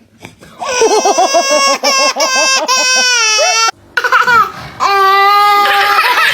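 A baby's high-pitched crying: a long, pulsing cry that breaks off suddenly about three and a half seconds in, then another long, steadier cry.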